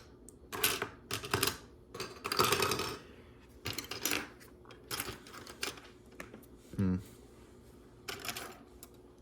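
Loose plastic Lego pieces clicking and clattering irregularly as they are sifted and pushed about by hand, with a longer rattling shuffle about two seconds in.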